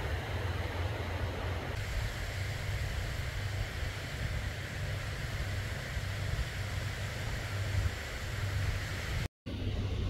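Steady low rumble of wind buffeting the microphone, with an even background hiss. The sound cuts out completely for a moment near the end.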